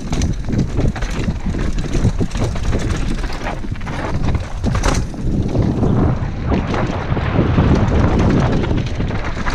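Downhill mountain bike ridden fast over rough dirt and roots, heard from a helmet-mounted camera: steady wind buffeting on the microphone over tyre noise, with frequent knocks and clatter as the bike hits bumps.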